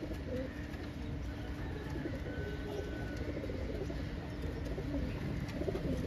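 Domestic pigeons cooing quietly over a low, steady background hum.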